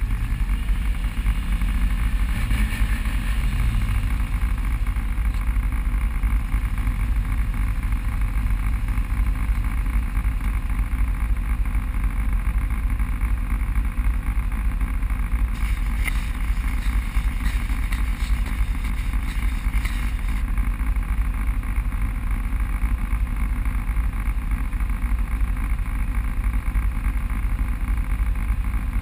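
Off-road vehicle running steadily along a trail, a continuous low rumble without changes in pitch. A short stretch of faint clicking and rattling comes a little past the middle.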